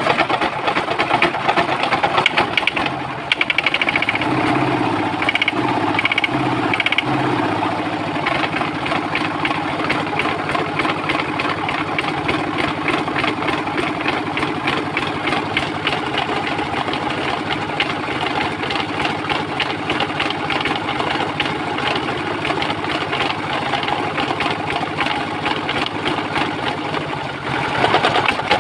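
Old West German Hatz 790 diesel engine running steadily with a rapid, even firing beat.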